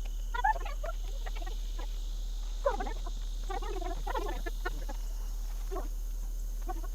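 Chickens clucking in short runs of calls a few times.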